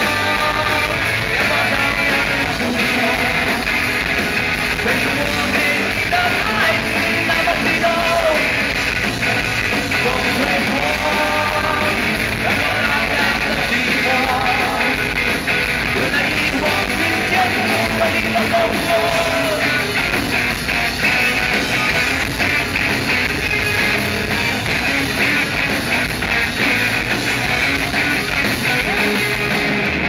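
Rock band playing live through a PA: electric guitars, bass and a drum kit, heard loud from among the crowd.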